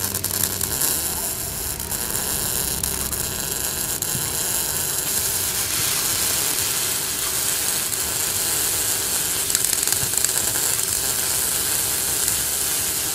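MIG welding arc with CO2 shielding gas, the wire arcing onto a steel plate: a steady, rapid crackle and sizzle.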